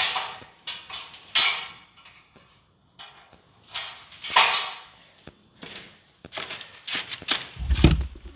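Removed stock chrome exhaust pipes of a Honda Shadow Aero 750 being set down and shifted on a cloth-covered floor: a series of separate metal clanks and rustles. Near the end come low thumps of the camera being handled.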